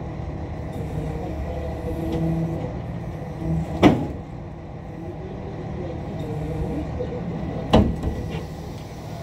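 A truck engine running steadily, with two sharp knocks about four seconds apart, the first about four seconds in.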